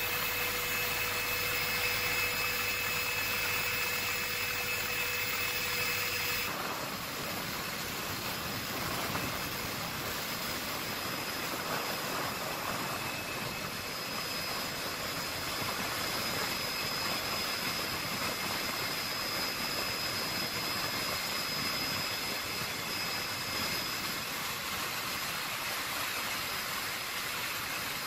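Helicopter cabin noise: a steady engine and rotor drone with a thin high whine on top. The tone of the noise changes abruptly about six and a half seconds in.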